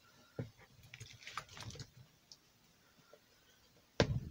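Light clicks and taps of a plastic container against the rim of a mixing bowl as whisked milk, egg and banana mixture is poured out, with one sharp knock near the end as the container is upended over the bowl.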